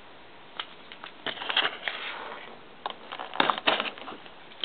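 A cardboard trading-card hobby box being opened by hand, with sealing stickers peeled and the lid pried. It makes a few short paper-and-cardboard crackles and scrapes, about a second in and again past three seconds.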